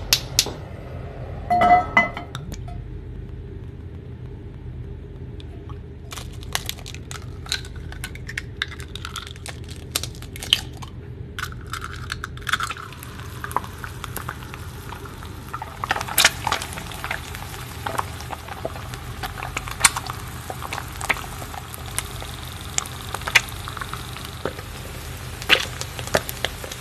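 Eggs frying in hot oil in a skillet: a stream of sharp crackles and pops from the spitting oil, dense for a while and then more scattered, over a steady low hum. About two seconds in there is a louder metallic clank.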